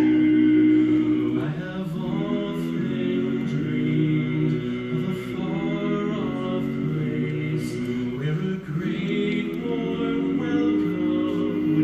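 Male barbershop quartet singing a cappella in four-part close harmony. A held chord opens, and the voices then move through changing chords.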